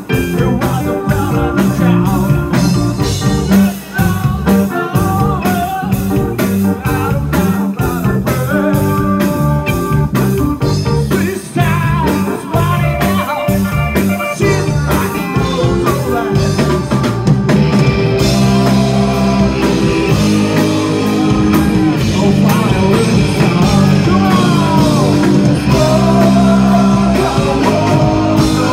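Rock band playing live: a male singer over drum kit and electric guitar.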